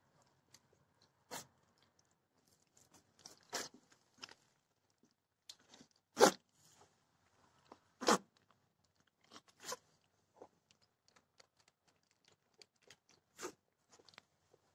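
Straw bedding crunching and crackling in scattered short crackles as a newborn goat kid is handled and cleaned in it, the loudest about six seconds in.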